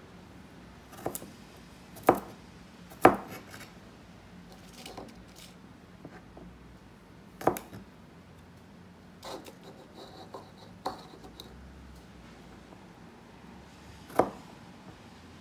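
Chef's knife chopping garlic cloves on a plastic cutting board: about seven sharp single knocks at uneven gaps of one to four seconds, the loudest about three seconds in.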